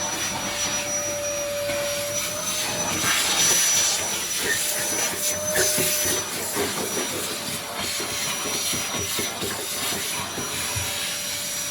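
A motor-driven machine running steadily: a whirring hiss with a constant high whine and scattered light crackles.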